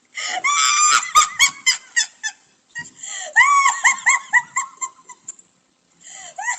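An animal giving quick, repeated high-pitched calls, about four a second, in runs broken by a short pause near the end.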